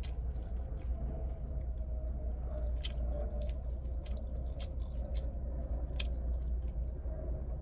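A person chewing a mouthful of sub sandwich, with a few short wet mouth clicks. A steady low hum runs underneath.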